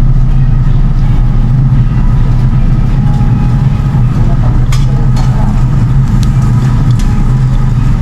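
Steady, loud low hum from the tabletop yakiniku grill's smoke-extraction fan, with a few light metallic clicks of tongs and chopsticks on the grill and plates.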